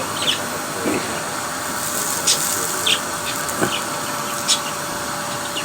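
A vacuum cleaner runs with a steady loud rushing hiss. Pet budgies and a lovebird give short high chirps over it every second or so.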